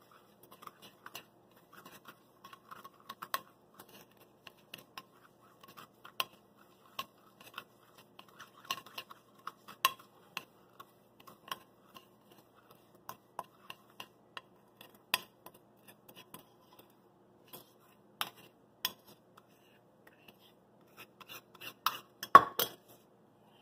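Metal spoon scraping and clinking in a small stainless steel bowl as a sticky paste is stirred and smeared around, in irregular scrapes and taps. Near the end comes a louder clatter of metal as the bowl is set down on the counter.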